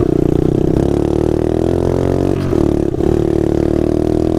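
Mini bike's small engine running as it is ridden, its revs easing off gradually, dipping briefly about two and a half seconds in, then picking back up and holding steady.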